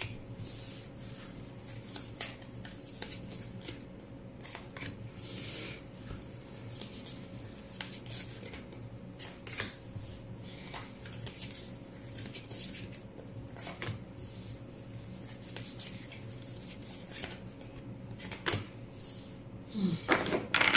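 Tarot cards being handled on a table: scattered soft rustles and clicks of cards being pulled and laid down, at irregular intervals over a steady low hum.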